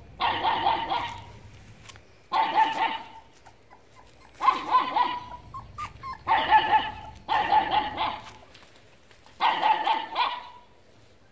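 A dog barking in six short bursts, spaced about one to two seconds apart.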